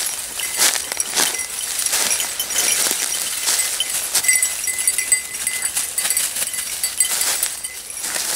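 Light irregular jingling and clinking from the collar bells of grand basset bleu de Gascogne hounds casting about over dry leaf litter. A thin high steady tone joins about four seconds in.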